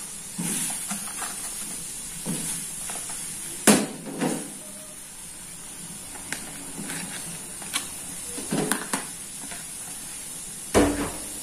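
Cooking clatter as taro is set to boil: scattered knocks and clinks of a pot and utensils over a faint steady hiss. The sharpest knock comes about four seconds in, and there is a heavier thump near the end.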